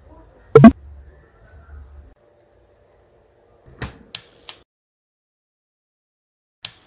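Plastic storage drawer handled: a loud bang about half a second in as it is shut, then three lighter knocks in quick succession around four seconds in and one more click near the end.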